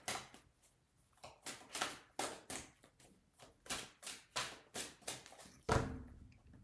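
Golden Tarot cards being shuffled by hand: a run of soft, quick card swishes, about three a second. Near the end a louder knock as the deck is tapped down on the table.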